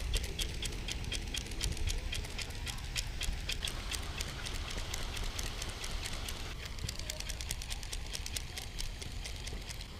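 Spinning reel being cranked, giving a rapid, even ticking as the line is wound in, with a pause about halfway through, over a low steady rumble.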